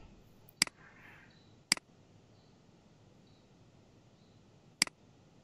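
Three computer mouse clicks: two about a second apart, then a third some three seconds later, over faint background hiss.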